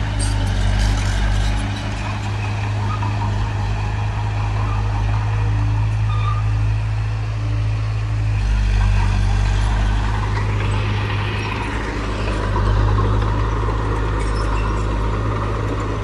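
Bulldozer's heavy diesel engine running steadily under load, with a deep hum and a brief metallic clatter near the start and again near the end.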